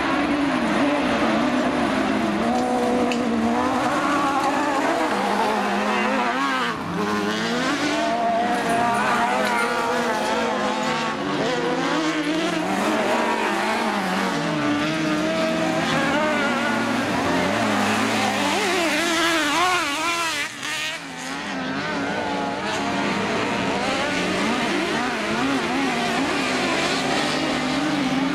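Engines of several autocross racing cars running on a dirt track, their pitches repeatedly rising and falling and overlapping as they accelerate, shift and lift off through the corners.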